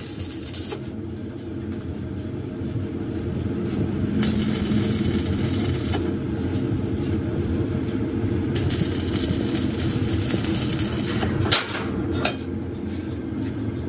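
Stick (arc) welding crackle in three bursts as steel pipe fittings are welded onto the steel shell of an air-compressor tank, over a steady low machine hum. Two sharp knocks come near the end.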